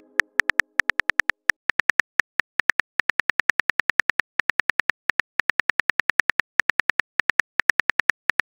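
Smartphone keyboard key-click sound effect as a text message is typed: rapid short ticks, about seven a second, with brief pauses between bursts.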